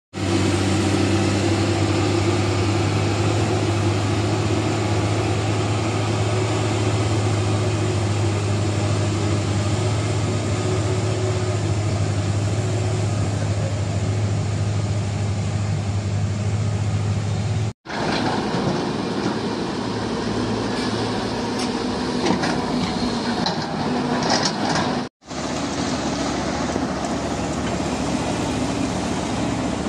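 Heavy diesel dump-truck engines running with a steady low drone for most of the clip. After a cut, there is a stretch of mixed machinery noise with scattered knocks. After a second cut, a Cat 320 GX hydraulic excavator's diesel runs steadily while it loads rock.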